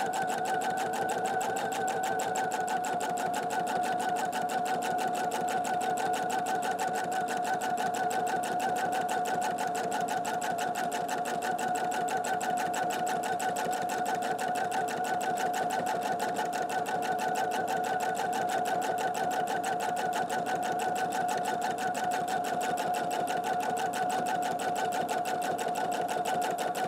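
Domestic sewing machine running steadily at speed for free-motion quilting: rapid, even needle strokes over a steady motor whine, with no pause or change in speed.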